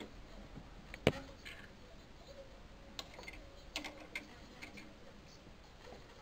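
Small clicks and taps of metal parts being handled around the needle and presser-foot area of an Elgin Decora sewing machine: one sharp click about a second in, then a cluster of lighter ticks around three to four seconds in.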